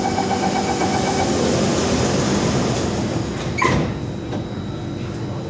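MRT Circle Line train doors closing: door-closing warning beeps for about two seconds, then the sliding doors shut with a loud thud a little past halfway.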